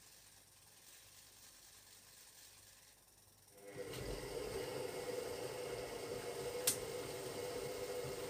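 Hoover Logic washing machine starting up after a few quiet seconds and running steadily with a hum, partway through its Cotton 60 wash, with one sharp click near the end.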